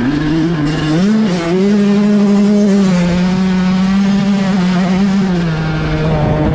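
Yamaha YZ125's 125 cc single-cylinder two-stroke engine running under way on a dirt trail. The revs climb back up in the first second or so, hold steady, then ease off a little near the end.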